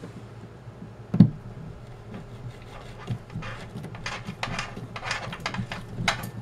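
One sharp click about a second in, then a quick run of scratching strokes from the second half on: a screwdriver bit scraped against drywall through the screw hole of a plastic shelf bracket to mark where the hole goes.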